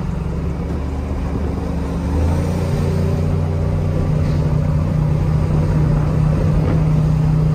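Chevrolet Silverado SS clone pickup's freshly rebuilt engine with a new cam, running under way and heard from inside the cab; its note steps up and climbs about two seconds in as the truck pulls.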